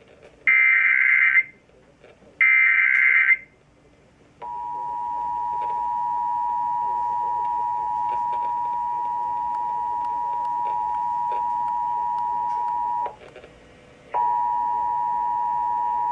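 Emergency Alert System tones over the radio. Two short screeching digital data bursts of the EAS header come a second apart. Then the steady two-tone EAS attention signal sounds for about nine seconds, cuts off, and starts again about a second later.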